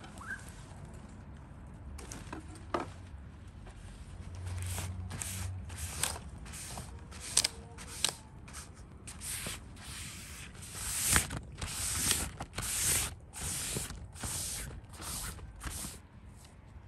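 A damp cloth wiping down large, wet banana leaves in repeated rubbing strokes, about one and a half a second, starting a few seconds in. Before the wiping, the stiff leaves rustle as they are spread on the table.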